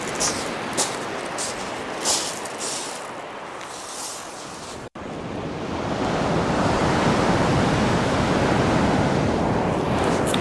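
Heavy surf breaking and rushing on a shingle beach, with wind on the microphone. A few short crunches come in the first few seconds. After a momentary dropout about halfway, the surf's rush grows louder and steadier.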